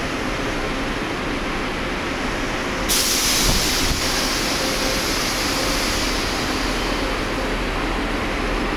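Steady rumble of a busy bus terminal with coaches standing by. About three seconds in, a sudden long hiss of released air from a bus's air system starts and slowly fades over the next few seconds.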